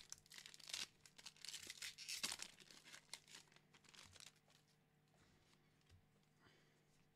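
Foil Pokémon booster pack wrapper crinkling and tearing as a pack is picked up and opened, a quick run of crackles over the first four seconds or so, then fainter rustling as the cards are handled.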